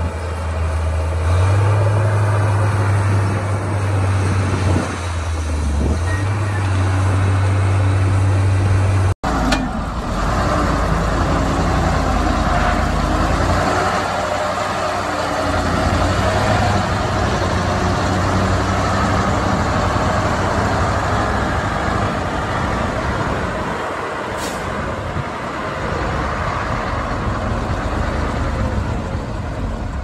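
Heavy diesel engines of earthmoving machinery, a bulldozer and dump trucks, running steadily. The sound breaks off abruptly about nine seconds in and resumes rougher and noisier, with a brief high hiss about twenty-four seconds in.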